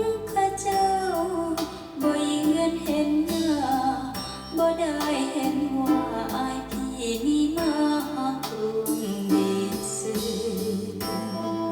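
Recorded song played back on a hi-fi system through Polk RTi A3 bookshelf speakers: a sung melody that glides between notes over plucked string accompaniment with a regular beat.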